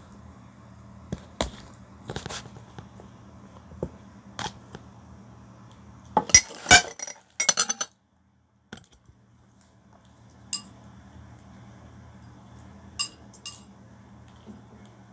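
Spoon and fork clinking and scraping against a ceramic bowl and plastic food container while eating rice noodles. The clinks come singly and scattered, with a loud quick cluster about six to seven seconds in.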